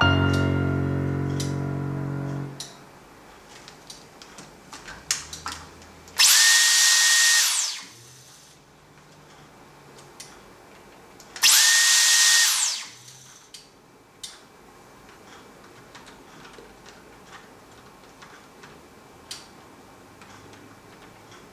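Dyson vacuum cleaner motor switched on in two short runs of about a second and a half: a rush of air with a steady high whine that starts and stops abruptly. Music fades out in the first couple of seconds, and a few small clicks fall between the runs.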